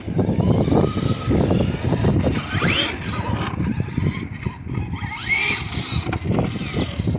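Traxxas Slash 2WD RC drag truck's electric motor whining up in pitch twice as it accelerates, over a loud, rough rumble.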